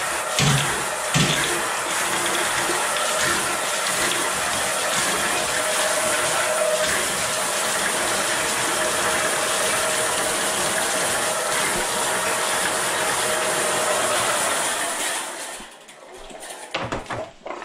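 Electric Eel Model C drain-cleaning machine running, its steel cable spinning and rattling inside the drain line at the stack base. The noise is steady, drops away for about two seconds near the end, then starts again.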